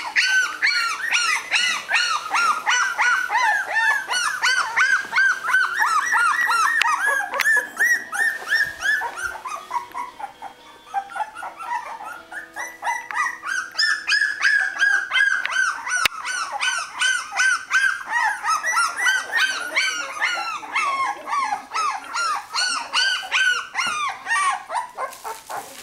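Young bull terrier puppies squealing and whimpering in short, high-pitched squeaks, several a second, easing off for a moment about ten seconds in before picking up again.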